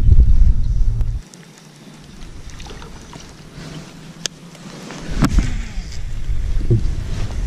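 Wind buffeting the microphone: a low rumble that drops away about a second in and builds back after about five seconds. Two sharp clicks come in the quieter stretch.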